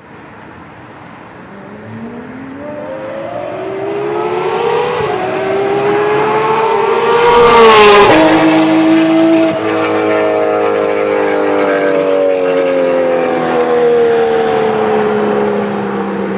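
A supercar's engine comes closer, its note rising and growing louder as it accelerates. It passes loudly about eight seconds in, its pitch dropping suddenly. It then runs on as it pulls away, the note slowly falling.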